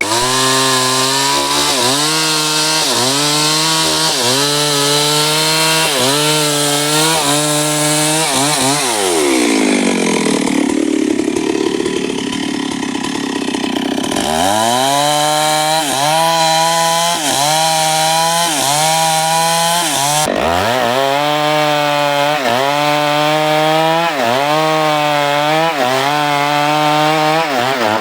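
Stihl MS 382 two-stroke chainsaw running at high revs, its pitch dipping slightly about once a second. Near 9 s it drops back to a low idle, revs back up around 14 s, dips briefly once near 20 s, and falls off again at the very end.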